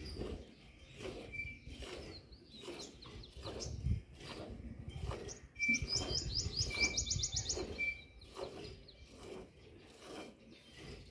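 A cow being milked by hand: jets of milk squirt into a partly filled steel bucket, about two squirts a second. Small birds chirp over it, with a quick run of falling chirps near the middle.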